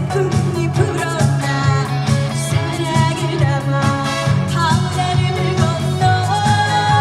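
Live trot song: a woman sings over a loud band backing track with a steady pulsing bass beat.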